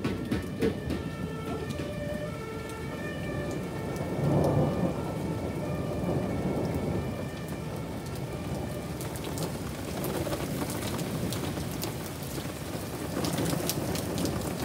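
Heavy rain pouring down in a thunderstorm, with a roll of thunder swelling about four seconds in.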